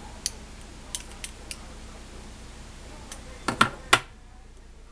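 Small sharp metal clicks of a stainless steel multi-tool being handled, with three louder snaps close together a little before the end.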